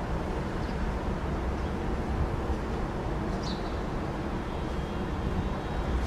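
Steady, even low rumble of outdoor background noise with no distinct events, and one faint high chirp about three and a half seconds in.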